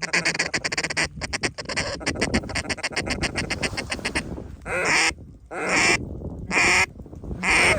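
Duck call blown hard to work incoming ducks: about four seconds of a fast, rattling feeding chuckle, then four loud, drawn-out quacks about a second apart.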